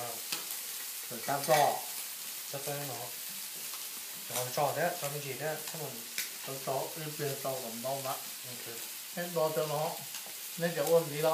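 People talking in short stretches over a steady background hiss.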